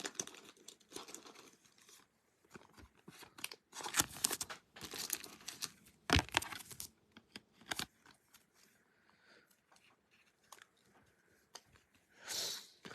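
Trading cards being slid into plastic penny sleeves and rigid top loaders: irregular crinkling and rustling of thin plastic with small scrapes and clicks, coming in bunches.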